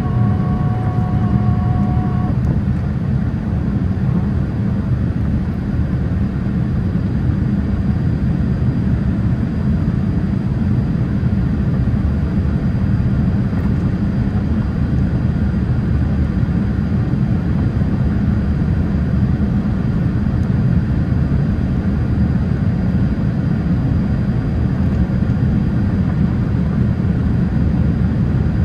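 Steady, deep rumble of engine and airflow noise inside the cabin of a Boeing 787-8 airliner in flight.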